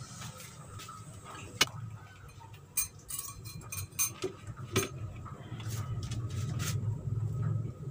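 Kitchen utensils clinking against a pot and dishes: a scattering of sharp clinks, coming more often in the second half, over a steady low hum.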